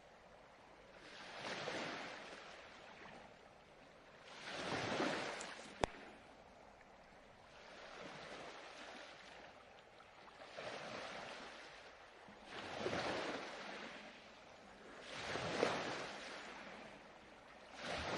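Ocean waves breaking and washing on a shore, each surge swelling and fading about every two to three seconds. A single sharp click sounds about six seconds in.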